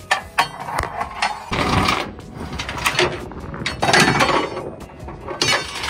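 Cargo tie-down being ratcheted tight: irregular metallic clicks of the ratchet pawl with scraping stretches, as the strap or chain is drawn up to tension.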